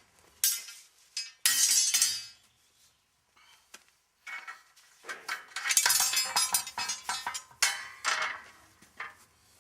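Steel clinking and scraping as a lock ring is worked onto a loader wheel rim. A sharp clink comes about half a second in and a longer ringing scrape about 1.5 seconds in; after a quiet spell, a run of clinks and scrapes fills the second half.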